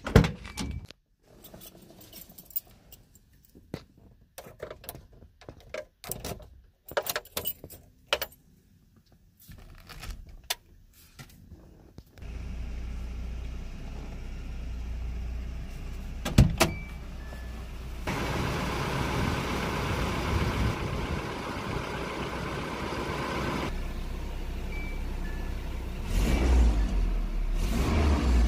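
Scattered clicks and jingles, then about twelve seconds in the Nissan D21 Hardbody's engine starts and runs steadily on its newly replaced ignition coil. One sharp knock comes a few seconds later, and the running grows louder near the end.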